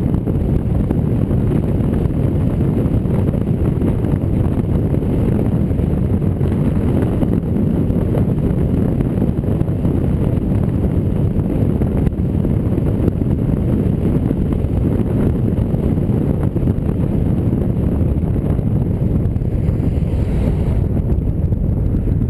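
Steady rush of wind and road noise from a Jeep Rubicon driving at speed on pavement, with heavy wind buffeting the microphone.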